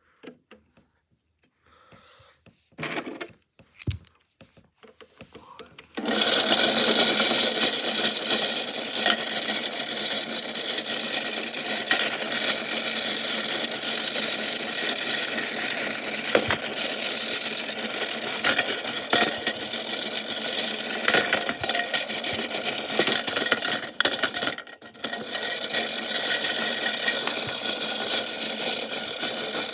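Washing machine running with a big rock loose in the drum, a loud dense rattling and banging that starts suddenly about six seconds in after a few faint knocks. It dips briefly about two-thirds of the way through, then carries on.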